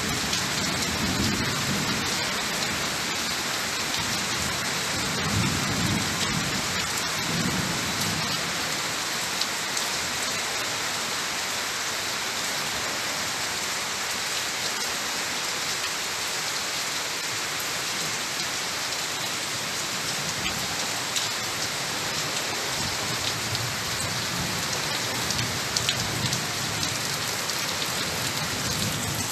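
Steady rain pouring down on trees and foliage, an even hiss of falling water throughout, with a few soft low rumbles in the first eight seconds.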